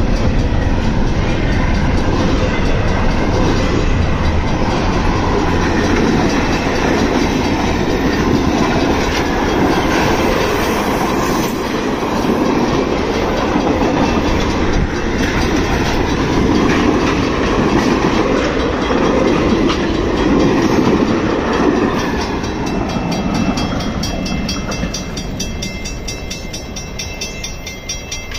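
Freight and passenger cars of a CSX train rolling past close by: steel wheels on rail, a steady rumble with clickety-clack from double-stack intermodal well cars and then passenger cars. The sound fades over the last few seconds.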